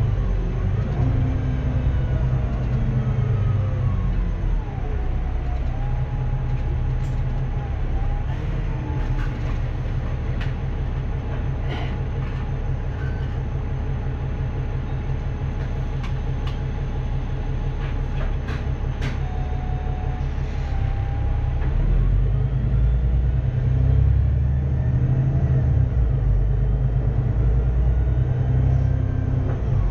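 VDL DB300 double-deck bus with a Cummins ISBe 6.7-litre six-cylinder diesel and Voith DIWA automatic gearbox. It slows with falling whines in the first few seconds, then runs low and steady with a few sharp clicks in the middle. From about 22 s the engine rumble swells and the whine rises again as the bus accelerates.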